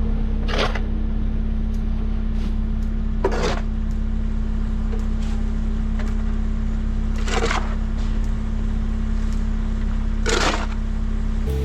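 A shovel scraping and scooping silage four times, about every three seconds, over the steady sound of an idling loader engine.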